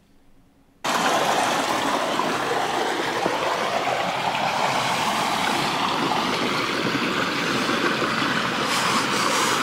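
Steady rushing of a mountain stream, cutting in suddenly about a second in after near silence.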